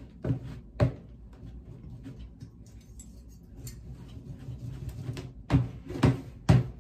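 A metal soil blocker is pressed into damp compost and knocked against a plastic tub. Two sharp knocks come in the first second and three more half a second apart near the end, with soft scraping of soil between.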